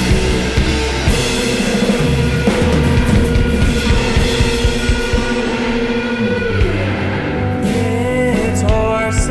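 A psychedelic rock band playing live: electric guitar, bass and drum kit in an instrumental passage of held chords. Near the end the full chords drop away into a thinner part with bending notes.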